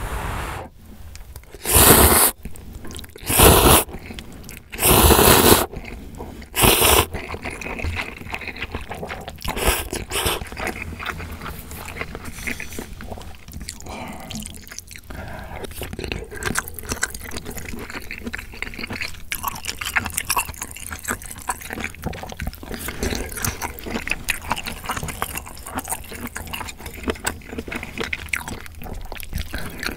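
Close-miked slurping of ramyeon noodles, four loud slurps in the first seven seconds, followed by steady wet chewing of noodles and sliced sausage.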